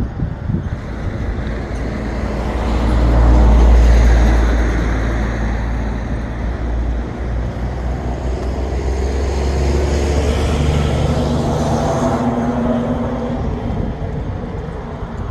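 Low engine drone of passing motor traffic, a steady rumble that swells about three to four seconds in and again more gently around ten to twelve seconds.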